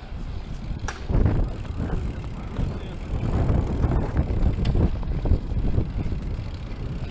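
Bicycle riding on skatepark concrete: tyres rolling with an uneven rumble and rattle, and a sharp knock about a second in.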